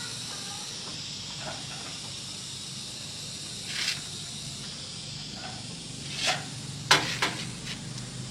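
A steady high hiss, with two short louder swishes about four and six seconds in and a few sharp clicks near the end.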